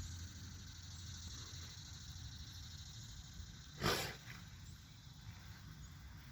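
A horse snorts once about four seconds in, a short sharp blow of air through the nostrils, over a steady low rumble.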